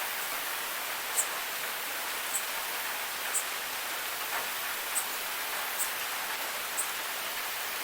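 Steady rain falling, an even hiss, with an insect chirping high and short about once a second over it.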